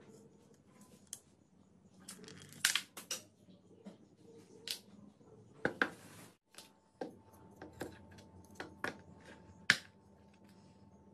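Irregular light clicks and taps as a homemade PVC-pipe slingshot and its small wooden parts are handled on a table, with one sharper click near the end.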